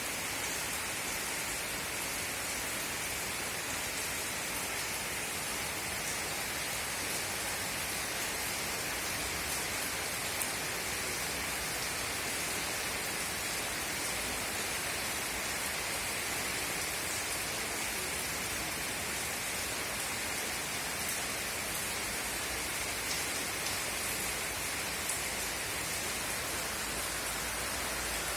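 Steady rainfall: an even hiss of rain with scattered faint drop ticks.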